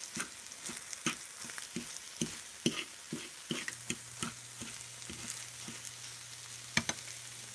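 Egg and chorizo sizzling in a nonstick frying pan as a spatula stirs and scrapes it, with frequent short clicks and taps of the spatula against the pan, sparser in the second half. A faint low hum comes in about halfway through.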